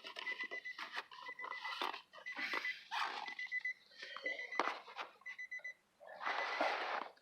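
A car's key-in-ignition reminder chime beeping steadily in quick groups of short, high beeps, about one group a second, because the key is left in with the door open. Irregular rustling and clicking from handling wire and trim pieces runs alongside, loudest near the end.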